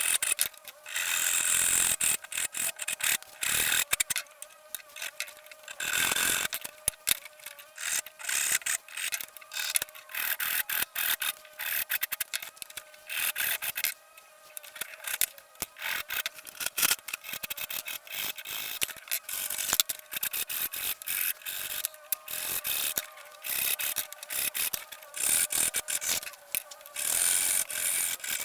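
Repeated hand rubbing and scraping strokes, quick and irregular, of the kind made working the surface of a rusty steel monkey wrench by hand.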